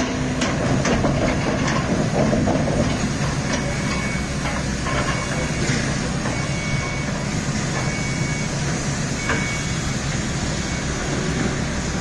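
Komatsu PC200 hydraulic excavator's diesel engine running steadily under work, with a few sharp knocks in the first couple of seconds.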